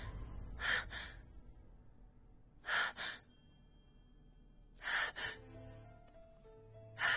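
A woman's heavy, frightened breaths, each an in-and-out pair, about every two seconds, as she catches her breath after waking from being choked in her sleep. Soft, sustained music notes come in about halfway through.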